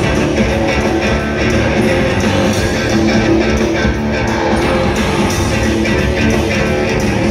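Live rock band playing loud, heavy electric guitars through a big concert sound system, heard from within the crowd.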